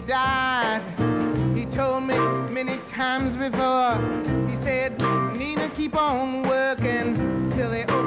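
Live band music, with a Steinway grand piano and drums, under a woman singing long, sliding, wavering notes without clear words.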